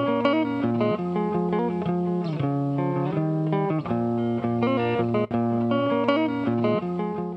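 Instrumental background music led by a plucked guitar, its notes changing in a quick, steady pattern.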